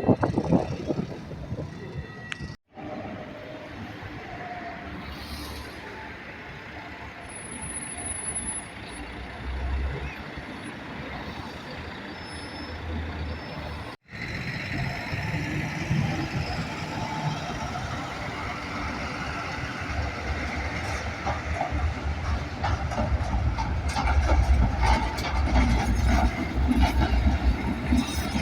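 Milan city trams and street traffic running past, heard as a steady rumble and rattle in three separately cut takes; the last part is the loudest, with a heavy low rumble.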